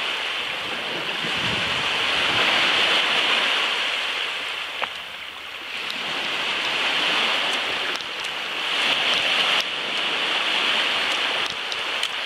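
Small waves washing up on a sandy beach: a steady hiss that swells and fades every few seconds.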